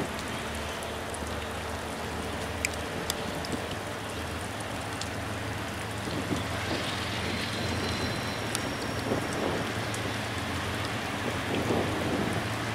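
Steady rain hiss with scattered drop ticks, over the low, steady rumble of Union Pacific diesel freight locomotives rolling slowly toward the listener. A faint high whine comes in briefly about two-thirds of the way through.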